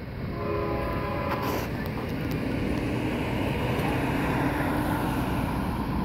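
Distant CSX freight train approaching: a low, steady rumble with faint sustained tones over it, and wind buffeting the microphone.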